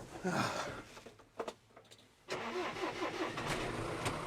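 A brief sound with a falling pitch near the start, then an engine starts suddenly a little over two seconds in and settles into a steady idle.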